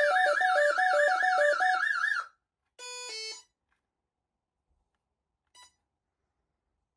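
Gardtec 595/600 intruder alarm sounding: a warbling siren over a pulsing lower tone, cut off abruptly a little over two seconds in as the alarm is silenced. About a second later comes a short two-tone beep, then a single faint beep, typical of the keypad confirming the alarm being unset.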